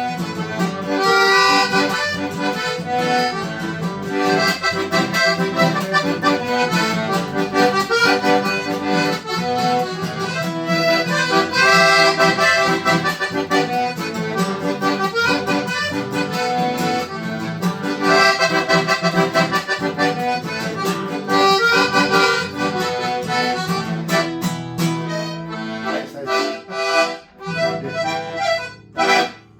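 Accordion playing a lively tune, a melody over pulsing bass and chords, which breaks up and stops near the end.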